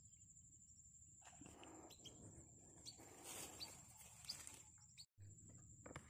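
Near silence: a faint steady high-pitched insect drone, with soft rustling and a few light ticks from about a second in until about five seconds in.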